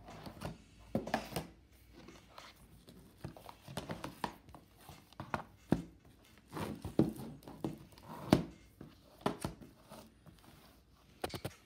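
Plastic DVD cases being handled on a table, with the crinkle of loose, freshly removed shrink-wrap. Irregular taps, knocks and rustles, the loudest about eight seconds in.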